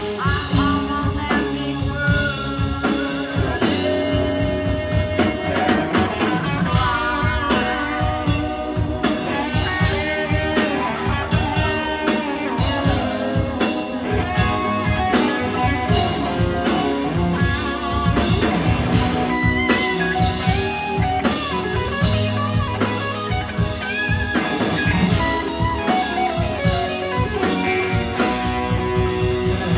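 Live rock band playing at full volume: electric guitars over a drum kit.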